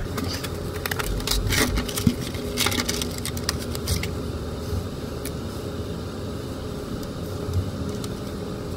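Cardboard and plastic packaging rustling and clicking as a box of two-part glue is opened and its tubes handled and unsealed, busiest in the first few seconds, over a steady low background hum.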